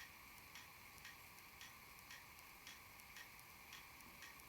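Faint, steady ticking, about two ticks a second.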